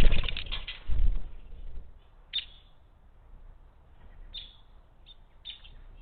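A loud rustle with two heavy thumps over the first two seconds, then several short, sharp bird chirps.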